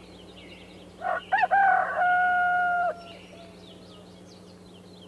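Rooster crowing once, starting about a second in: a few short rising notes, then one long held note of about a second that cuts off. Faint small-bird chirping and a low steady hum lie under it.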